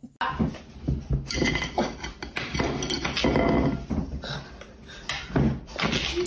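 A yellow Labrador retriever's front paw knocking and scraping on a wooden tabletop, with light clinks from a plate, in a string of irregular taps.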